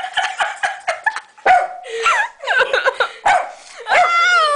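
A dog barking and yelping excitedly in quick, high, sharp yaps, with a longer drawn-out high yelp near the end.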